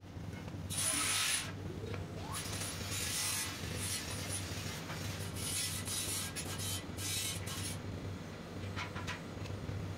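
Hand-tool workshop noise: several irregular bursts of rasping, rubbing strokes, the loudest about a second in, with faint clicks near the end, over a steady low hum.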